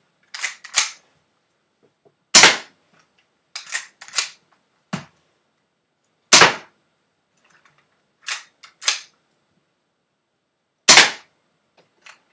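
BB gun firing single shots, three sharp cracks about four seconds apart, with quieter pairs of clicks in between.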